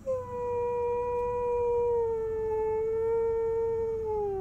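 A husky howling: one long howl that starts at once, holds a steady pitch, then slides lower near the end. The dog is coming round from anesthesia.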